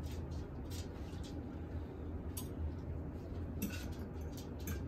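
Metal utensils clicking and scraping lightly against the slow cooker's crock as slow-cooked steak is cut up, a few sharper clinks near the end, over a steady low hum.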